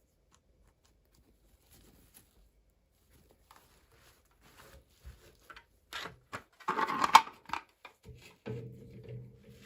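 Plastic packaging and small toy pieces being handled during an unboxing: scattered clicks and rustles, a loud crinkling burst about seven seconds in, and a short low hum near the end.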